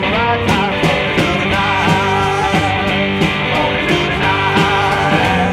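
Background rockabilly song with electric guitar and a steady beat.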